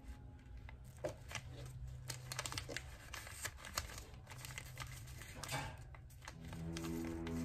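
Origami paper rustling and crinkling as folded paper units are handled and slotted together into a pinwheel, a series of short crisp crackles. Background music comes back in near the end.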